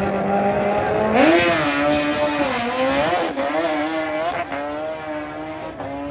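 Two drag-racing superbikes launching off the start line: the engines are held at high revs, then rise sharply about a second in and waver through quick gear changes as the bikes pull away down the track. The engine sound then eases off into a steadier, quieter drone.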